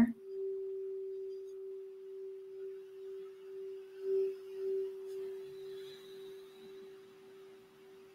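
A Crystal Alchemy crystal singing bowl tuned for the throat chakra rings out one steady pure tone after being played. The tone slowly fades, with a gentle pulsing waver.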